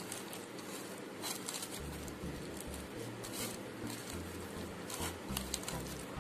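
Hand squishing and tossing sliced onions with green chillies and spice in a plastic bowl, a run of wet, crackling rustles.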